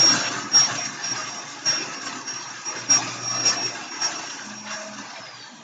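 Household vacuum cleaner running with a steady high whine, fading away gradually, with a few knocks along the way.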